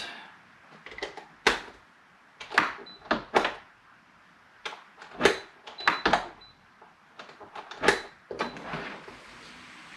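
Sharp clicks and knocks of hard parts being handled and fitted together as the cover goes onto a keypad-and-fingerprint door lock, about ten separate knocks with short pauses between them.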